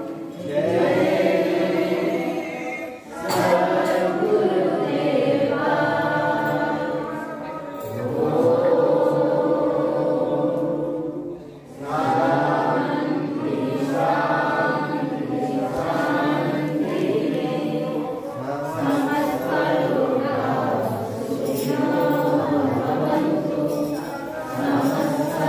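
A group of voices singing a devotional Sai bhajan together, phrase after phrase, with brief pauses about three seconds in and again near the middle.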